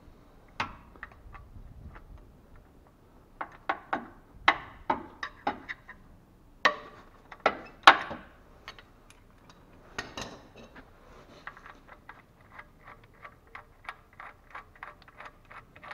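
A ratchet wrench with a socket working the fill plug loose on a CVT transmission case. First come several sharp metal clicks and knocks as the wrench is set and levered. Then, from about two-thirds of the way in, comes a steady run of quick ratchet clicks, about three or four a second, as the plug is turned out.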